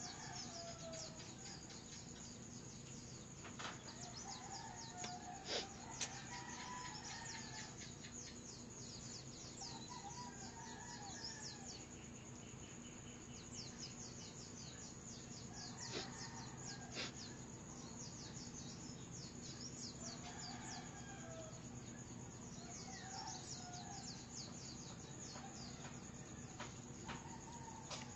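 Roosters crowing faintly, about eight times, over a constant high chirping and a steady low hum, with a few sharp clicks near the start and around the middle.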